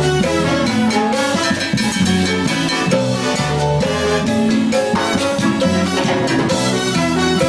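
Salsa music played by a Cuban-style band, with drums keeping a steady dance beat under held instrumental notes.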